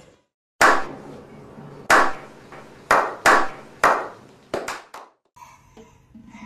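Slow clap: loud single hand claps, each ringing briefly, first about a second apart and then coming closer together, ending in a quick run of claps from several pairs of hands.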